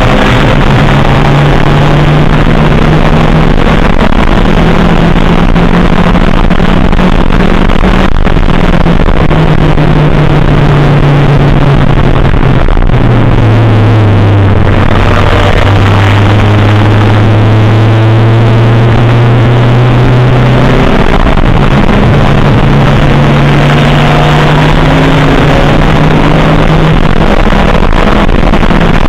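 Race car engine running hard at high revs, heard from inside the stripped cabin through a badly distorted, clipped onboard microphone. The engine note steps down about halfway through and holds lower for several seconds, then climbs again.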